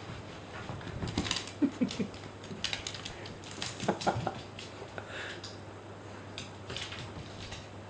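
A dog digging and scratching at something to get out a ball hidden inside it: irregular scratching and rustling, with a few louder knocks about one and a half to two seconds in and again about four seconds in.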